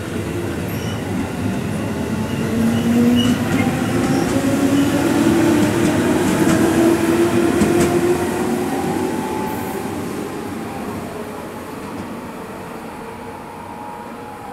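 Electric commuter train pulling away: its motor whine climbs steadily in pitch as it gathers speed, over the rumble of wheels on rail. It is loudest about halfway through, then fades as the train moves off.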